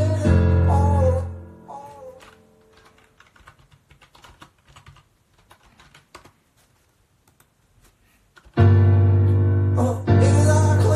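A recorded song with a sung voice and heavy bass plays back, then dies away about two seconds in. Faint scattered clicks follow, and the song starts again suddenly near the end.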